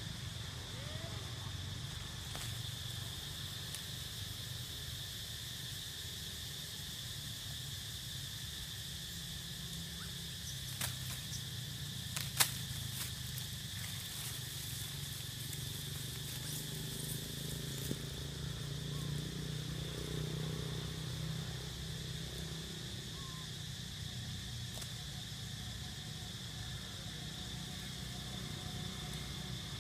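Steady high-pitched drone of insects in forest, over a low steady rumble, with two sharp clicks near the middle.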